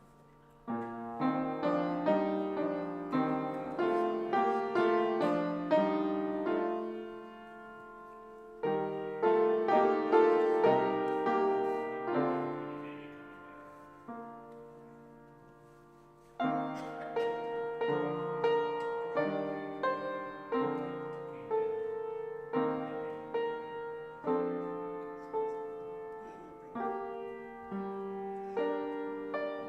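Solo piano playing a slow, quiet piece in phrases, with notes struck and left to ring and die away; twice the playing thins out and fades before a new phrase starts.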